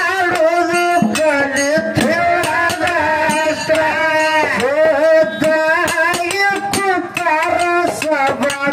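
Kannada bhajana pada sung into a microphone and amplified, the voice holding long notes that bend and waver in pitch, over a regular hand-percussion beat.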